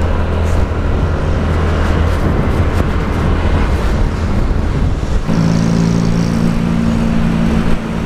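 Motorcycle engine running under way, heard with heavy wind noise on the camera microphone; the engine note steps up to a higher pitch about five seconds in.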